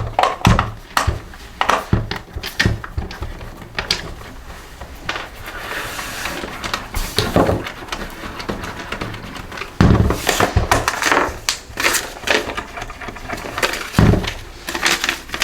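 Irregular clicks, knocks and scrapes of hand tools on a cordless leaf blower's plastic housing as its screws are undone, with a couple of heavier knocks about ten and fourteen seconds in and a scraping stretch in the middle.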